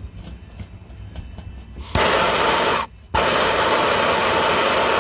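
Handheld brazing torch flame hissing loudly while heating aluminum to brazing temperature. The hiss starts abruptly about two seconds in, drops out for a moment near the three-second mark, then comes back.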